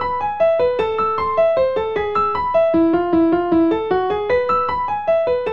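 Outro music: a piano-like keyboard plays a quick melody of single notes, about four a second, each note struck and fading.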